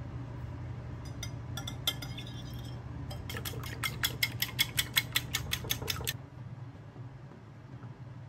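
Small wire whisk beating eggs and milk in a ceramic bowl, its metal tines clicking against the bowl: a few scattered clicks at first, then a fast even run of about five clicks a second that stops about six seconds in. A low steady hum runs underneath.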